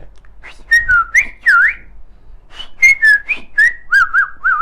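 A person whistling a bird-call imitation: two phrases of chirpy, sliding whistled notes, swooping down and up, the second phrase ending in three quick dipping notes.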